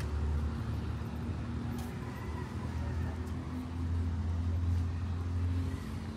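Road traffic on a city avenue: a low, steady rumble of vehicle engines, louder for a couple of seconds from about four seconds in.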